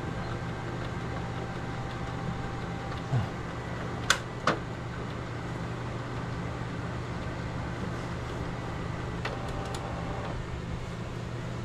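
Canon G1010 inkjet printer being opened and handled: a pair of sharp plastic clicks about four seconds in and fainter ones near the end, over a steady low hum.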